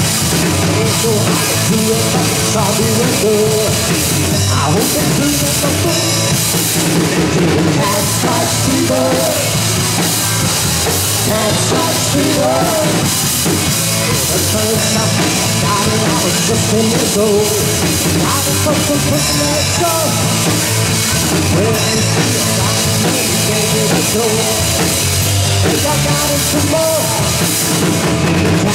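Live rock band playing loudly: two electric guitars, bass guitar and drum kit.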